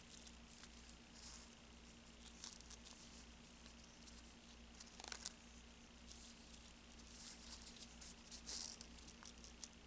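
Small scissors snipping through paper-backed wool felt: faint, scattered snips and soft paper rustles as the piece is turned.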